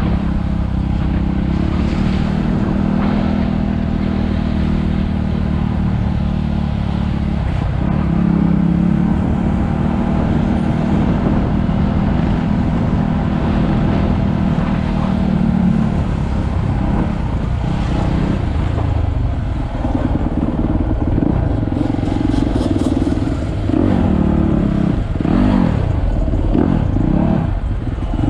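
Motorcycle engine running at a steady pitch while riding. In the last several seconds it revs up and down repeatedly.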